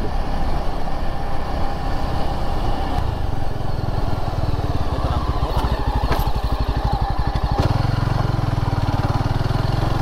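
Motorcycle engine running while being ridden. About four seconds in, the engine note drops into a slower, distinctly pulsing beat as the road turns to a dirt track, then evens out again for the last couple of seconds.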